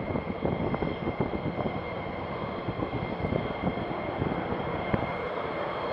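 F-35 fighter's single F135 turbofan engine running at taxi power: a steady high whine over an uneven rushing rumble.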